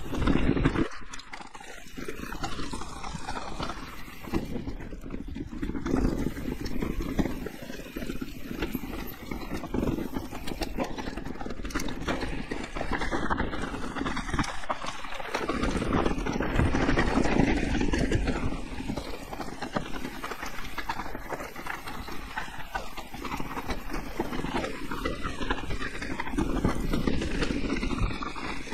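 Mountain bike riding down a rough enduro trail: steady rolling noise of the tyres over dirt and rock, with constant clattering and knocking from the bike over the bumps, easing briefly about a second in and again about halfway.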